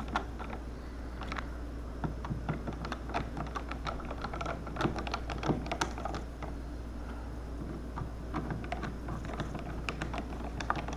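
Irregular small clicks and taps of a screwdriver and plastic switch parts being handled at a wall switch box, over a steady low hum.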